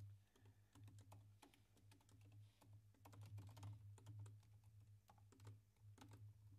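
Faint typing on a computer keyboard: quick, irregular keystrokes with short pauses between runs.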